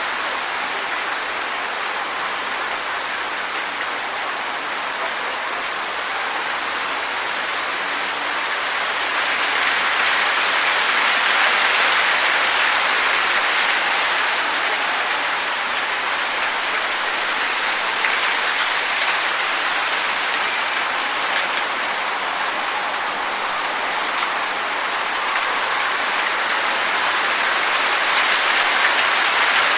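Wind rustling through tree leaves: a steady hiss that swells a little about ten seconds in and again near the end.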